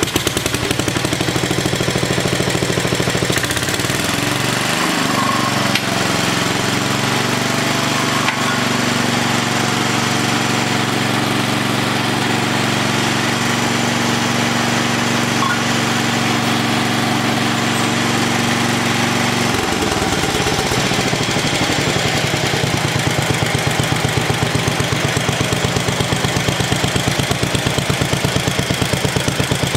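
Tecumseh HH100 10 hp single-cylinder engine running on a newly fitted aftermarket carburetor, its mixture screw just turned out one turn. It speeds up over the first few seconds, holds a steady high speed, then drops back about twenty seconds in to a slower idle with a plain, even pulse.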